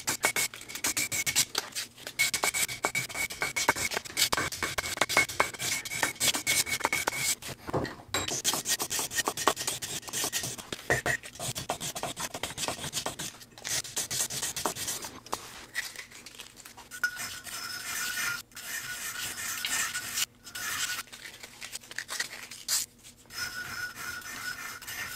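Hand sanding of a steel spoon-carving blade (scorp) clamped in a vise with 600-grit sandpaper: quick back-and-forth strokes of abrasive on steel, a gritty rasping, in spells broken by a few short pauses.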